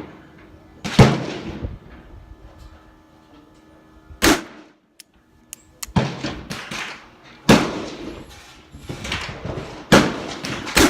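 Gunshots at a shooting range: a .357 Magnum Colt Trooper revolver fired double action, mixed with shots from neighbouring shooters. About six sharp reports with echoing tails come one to three seconds apart, the loudest about a second in.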